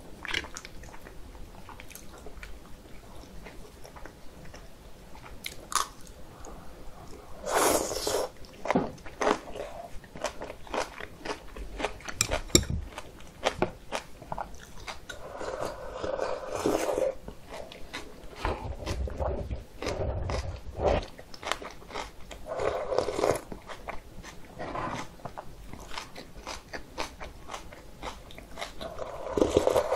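Close-miked eating sounds: kimchi and dumplings being chewed, with crunching and many small mouth clicks. Several louder slurps of the cold, slushy soy-milk broth of kongguksu come about 8, 16, 23 and 29 seconds in.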